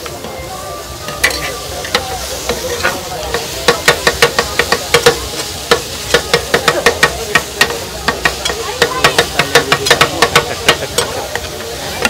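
Metal spatula clattering and scraping in a pan as soya egg bhurji is stirred and chopped, with the food sizzling in oil. The strikes come in quick runs of several a second, busiest from a few seconds in until near the end.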